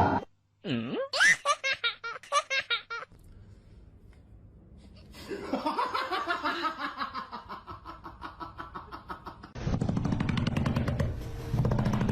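Laughter in short rhythmic bursts, a quiet gap of about two seconds, then a longer run of rapid laughter. A louder, rougher rapid pulsing sound takes over about ten seconds in.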